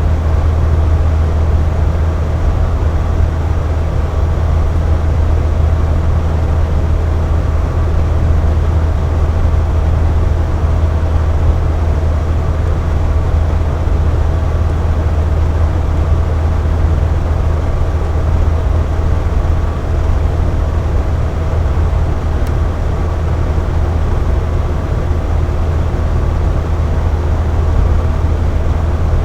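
Box fan running steadily at constant speed: an even rush of air over a low hum, with a faint whine from the motor.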